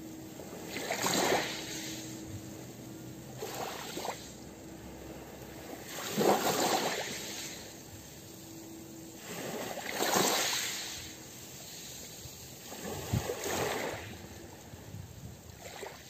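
Small sea waves lapping onto a pebble beach, washing up over the stones five times, roughly every three to four seconds.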